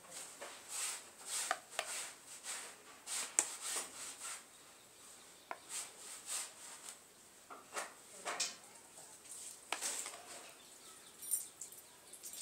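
Steel spoon scraping and tapping against a steel pot and a melamine plate while soft, curd-soaked dahi vadas are scooped out, a series of short, irregular scrapes.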